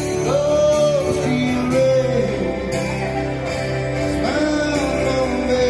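Live male vocalist singing long held notes while accompanying himself on an acoustic guitar, sung into a microphone.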